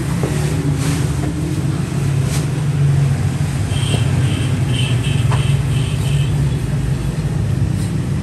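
Steady low hum of running machinery, with a brief run of high, quick chirps about halfway through.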